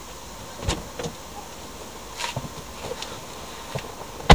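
Scattered light clicks and knocks inside a car cabin, then one loud thump near the end.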